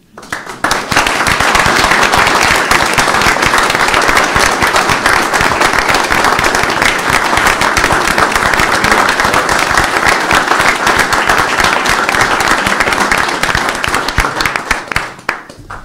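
A roomful of people applauding loudly: dense, steady clapping that builds up in the first second and dies away near the end.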